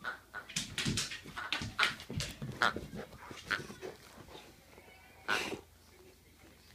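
Newfoundland puppy playing with a plush duck toy. There is a quick, irregular run of short, sharp noises for about four seconds, then one more a second later, and it goes quieter near the end.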